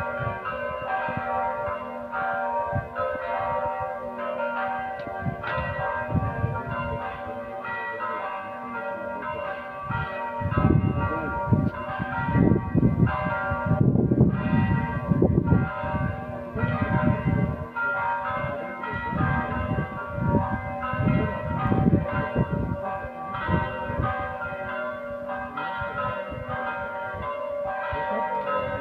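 Urban M electronic church bell playing a church-bell toll through loudspeakers: repeated bell strikes whose tones ring on between them. Bursts of low rumble come and go through the middle.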